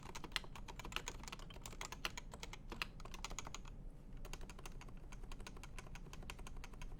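Continuous fast typing on a computer keyboard, a dense patter of key clicks with a short pause about halfway through.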